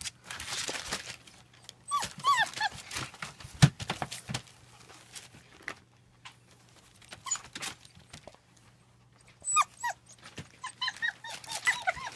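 German Shepherd puppies whining and yipping in short, high, falling squeals: one burst about two seconds in, then more near the end, with scattered knocks and scuffles between.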